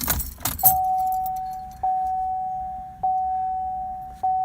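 Keys jingling and clicking as a key goes into the ignition and turns, then the Chevrolet Sonic's dashboard warning chime dinging repeatedly, one steady note struck about every 1.2 seconds and fading after each strike, as the ignition comes on with the new key.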